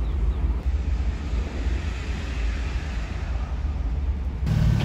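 Outdoor vehicle rumble with wind on the microphone: a steady low drone of engines and traffic. About four and a half seconds in, it changes abruptly to a louder, deeper engine hum, as of a bus close by.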